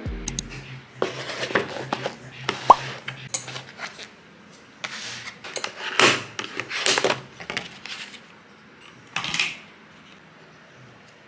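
Knife, fork and takeaway food containers handled at a table: a run of clicks, scrapes and short rustles, with one brief metallic clink about three seconds in.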